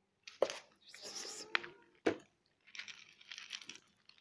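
Clear plastic food container being handled and shaken out: two sharp knocks about a second and a half apart, with rustling, scraping noise between and after them.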